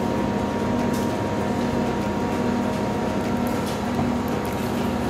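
Steady machine hum in the room, made of a low drone and a thin high tone, with a couple of faint clicks.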